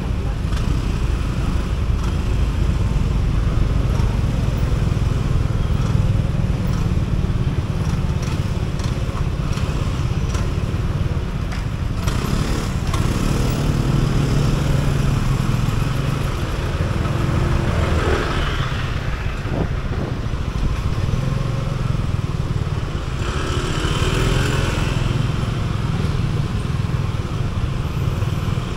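Motor scooter riding in slow city traffic: its small engine running under a steady low rumble of road noise. Nearby traffic grows louder a few times partway through.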